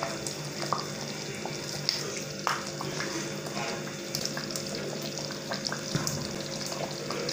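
A serving spoon stirring and scooping thick yam pottage in a pot and dishing it onto a plate, with a few light scattered knocks of the spoon against pot and plate over a steady low hum.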